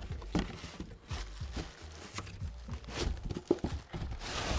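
Cardboard flaps scraping and a plastic bag crinkling as a wrapped item is pulled out of a small cardboard box, with scattered light knocks and taps.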